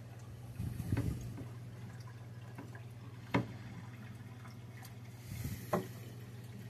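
Aquarium water dripping and trickling over a steady low hum, with sharp pops about a second in, at three and a half seconds and near six seconds.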